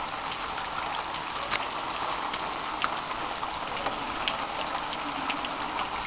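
Artificial rain falling steadily onto rainwater-harvesting demonstration models: an even hiss of falling water with scattered sharp drop ticks.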